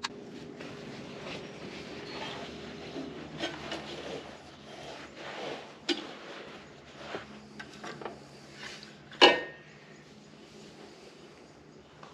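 Small metal screws and hand tools clinking and being set down, scattered light clicks and knocks, with one sharp ringing metallic clink about nine seconds in. A faint steady hum runs underneath.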